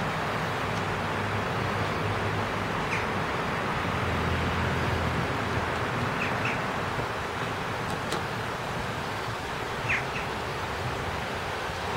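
Steady rushing outdoor background noise with a low rumble, and a few short bird chirps about three, six and ten seconds in.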